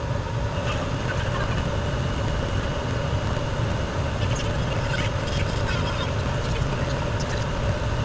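Chinese diesel heater burning waste oil, running steadily: an even hum from its combustion fan and burner, with a faint steady tone over it and a few light ticks.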